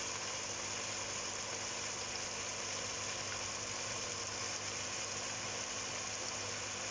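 Diced chicken frying in oil in a wok, a steady sizzling hiss, over a low steady hum.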